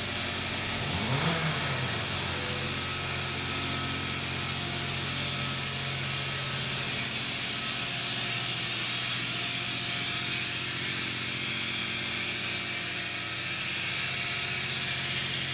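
Compressed-air oil extractor hissing steadily as it draws oil from an engine that has almost none left, over a steady low hum.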